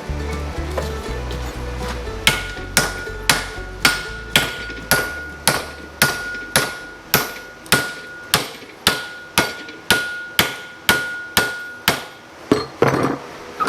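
Hammer striking a steel plate being shaped over a round form, about twenty evenly spaced blows at roughly two a second, each with a bright metallic ring. A short scraping rattle of metal follows near the end.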